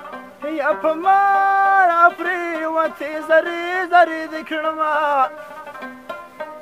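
A Pashto tapay sung with rabab: a voice holds a long, sliding, ornamented line from about half a second in until about five seconds in, over plucked rabab notes that carry on alone at the start and end.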